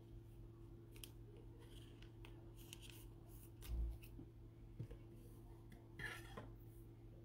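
Faint rustling and light clicks of trading cards being handled and set down by a gloved hand, with one soft low thump near the middle. A steady low hum runs underneath.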